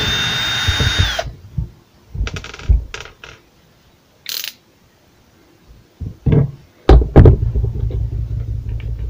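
Cordless drill-driver whirring for about a second as it backs a screw out of an angle grinder's gear housing, ending with a falling whine. Then scattered clicks and knocks as the housing and screws are handled, and a low rubbing handling noise over the last couple of seconds.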